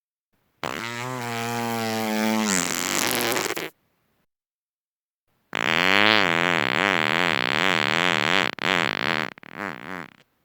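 Two long human farts. The first runs about three seconds, holding a steady pitch and then dropping near its end. The second starts about five seconds in and runs nearly five seconds, wavering up and down in pitch before breaking into short sputters at the end.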